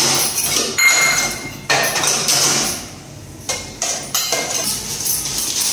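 Stainless steel plate and small steel bowls clattering on a kitchen counter, with a few sharp knocks, over a steady rustling of plastic carry bags as takeaway food is unpacked.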